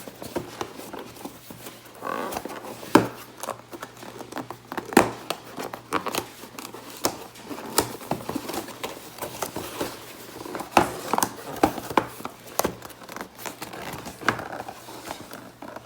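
A cardboard speaker box and its packaging being handled and searched: crinkling and rustling with many scattered small knocks and scrapes.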